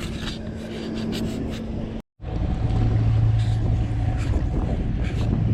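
Light ticking sounds over a faint steady hum, broken by a sudden drop-out about two seconds in. Then a steady low motorboat engine hum.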